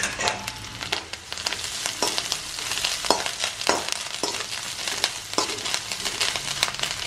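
Grated coconut, shallots, dried red chillies and curry leaves sizzling in hot oil in an aluminium kadai, with a spoon repeatedly scraping and clicking against the pan as the mixture is stirred. The coconut is being roasted until it turns brown for the curry's tempering.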